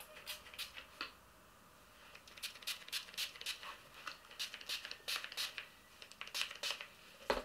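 A run of short scratchy rustles in quick clusters, close handling sounds, with one sharper knock near the end.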